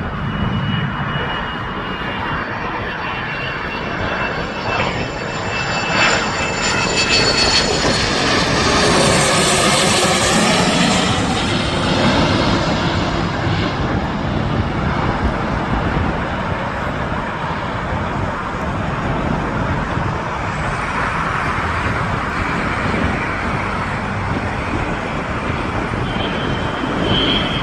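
Embraer Phenom 300 business jet's twin Pratt & Whitney PW535E turbofans running as it comes in to land, growing louder to a peak about nine to eleven seconds in as it passes, with a sweeping hiss, then settling into a steady rumble.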